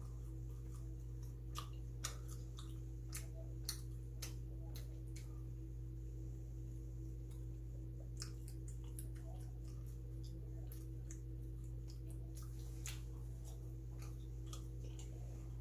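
Someone chewing bungeoppang (fish-shaped pastry): faint, irregular mouth clicks and smacks, a few at a time, over a steady low electrical hum.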